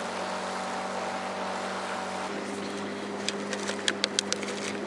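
Outboard motor running steadily with wind and water noise. About two seconds in, the hum changes, and near the end comes a quick run of sharp clicks.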